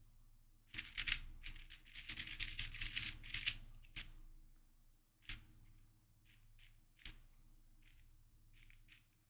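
YJ MGC 4x4 magnetic speedcube being turned by hand: a quick flurry of plastic clicks and clacks for about three seconds, then single turns clicking every second or so.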